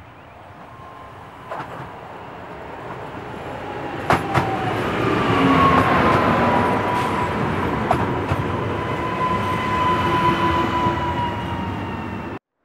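EN98 electric multiple unit approaching and passing close by, its rolling rumble building to a peak about halfway through. A steady whine rides over it and dips slightly in pitch as the train goes past, with a few sharp clicks of wheels over rail joints. The sound cuts off suddenly near the end.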